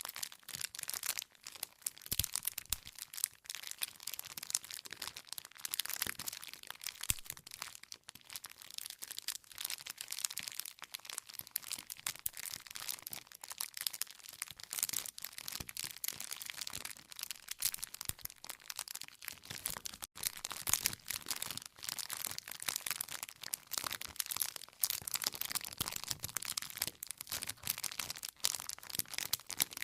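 Wood campfire crackling: a steady stream of small, irregular pops and snaps from burning logs, with no let-up.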